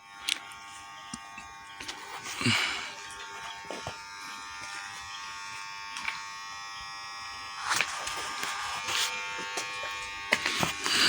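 A machine's steady electric buzz with many overtones, with a few short louder noises about two and a half seconds in, near eight seconds and near the end.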